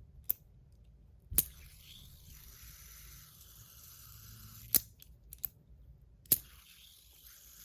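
Fidget spinner being spun and handled in the hand: five sharp clicks spread unevenly across the few seconds, with a faint hiss between the second and third.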